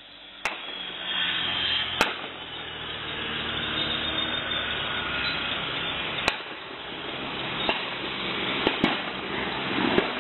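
Seven gunshots through a CCTV camera's microphone. Two come about a second and a half apart near the start, one about six seconds in, then four more in the last few seconds, two of them in quick succession. A steady rushing noise with a low hum runs underneath.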